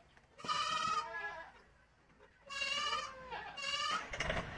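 Goats bleating, three calls in a row. Near the end a tractor engine starts up and keeps running with a steady low rumble.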